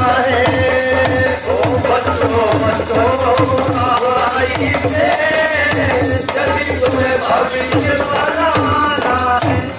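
Devotional folk music: a dholak drum and jingling rattle percussion under a melody line, played steadily and stopping near the end.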